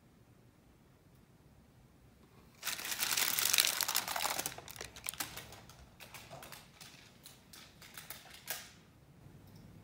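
Parchment-lined baking tray being handled and carried off: about two seconds of dense crinkling and rustling of the parchment paper, then a scatter of sharp crackles and clicks that trails off near the end.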